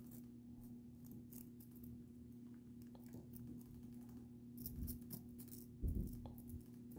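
Faint, scattered scratching and clicking of a small blade scraped over the roasted skin of a pig's head to pick off leftover hairs, over a steady low hum, with a couple of dull thumps a few seconds in.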